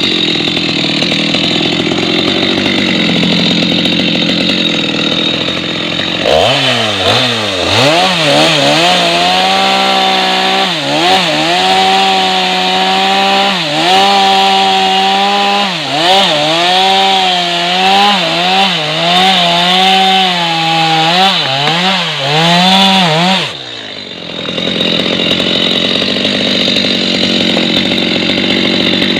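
Stihl MS 250 two-stroke chainsaw running hard while cutting wood. About six seconds in the engine note comes out clearly and dips again and again as the chain bites, then recovers. Near the end it drops away briefly before running steadily again.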